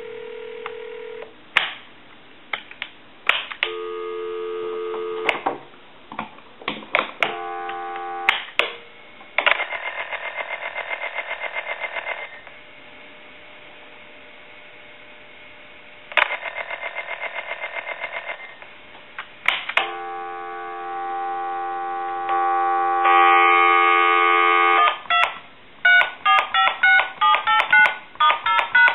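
Harris TS22 lineman's butt set working a live phone line: dial tone, interrupted by sharp clicks, then a buzzy ringing tone that sounds twice for about two to three seconds each. Near the end, dial tone returns and a quick run of touch-tone (DTMF) digits is dialed.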